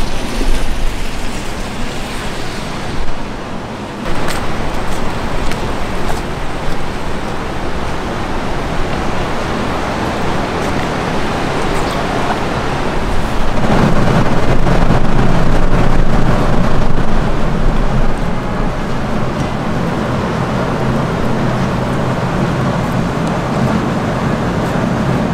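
City street traffic noise, a steady wash of passing vehicles, growing louder and deeper about halfway through for a few seconds before settling back.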